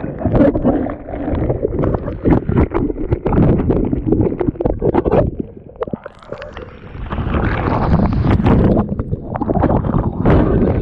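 Churning surf and whitewater splashing and sloshing over a camera held at water level, muffled, with many quick splashy knocks. It eases off about six seconds in, then builds again as a breaking wave washes over the lens near the end.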